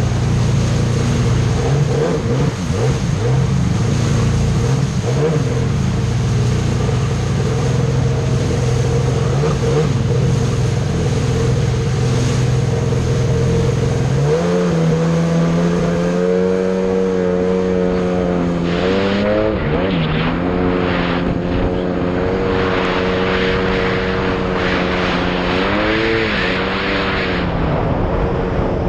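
Jet ski engine running under way, mixed at first with rushing water and low rumble from the choppy river. About halfway in the engine note steps up and comes through clearly as a steady hum, and later the revs rise and dip twice.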